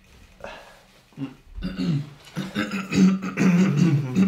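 A man's voice making wordless vocal noises: a short sound near the start, then from about a second in a drawn-out, wavering run of voiced sounds.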